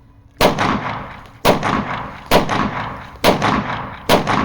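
Five pistol shots fired at a steady pace of about one a second, each followed by a long fading echo: a Moon Star Arms–made Glock 19X being test-fired.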